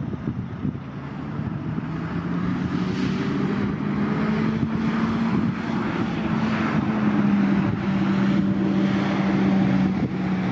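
Ex-Amtrak F40PH diesel-electric locomotive with an EMD 16-645 V16 engine, running with a steady humming drone as it approaches with its passenger train, growing louder over the first few seconds, under the rumble of the train on the rails.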